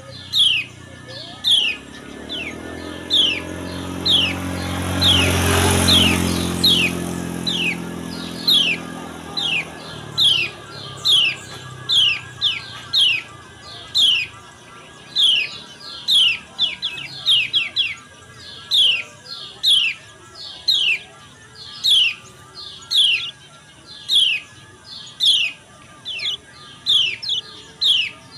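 Lemon-bellied white-eye (kecial kuning) giving a steady series of short, sharp 'ciak' call notes, roughly one a second with a few quick runs of two or three: the female's ciak calls, which lure males of the species into song. A motor vehicle passes a few seconds in, rising and fading.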